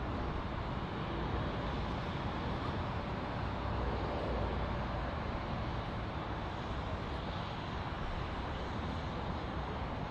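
Distant jet aircraft engines: a steady rumble and hiss that neither rises nor falls.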